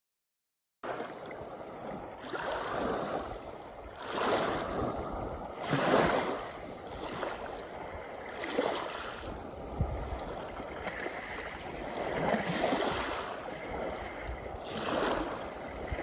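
Small waves washing in and out on a pebble beach, the hiss of the water swelling and fading every couple of seconds. It starts abruptly about a second in.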